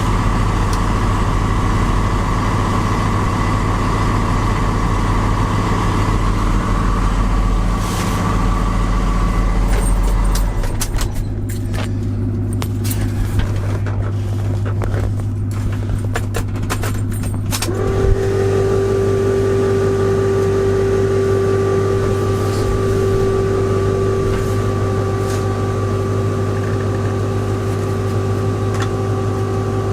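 Truck engine idling steadily, its tone shifting abruptly about ten seconds in and again near eighteen seconds, with a run of sharp clicks in between.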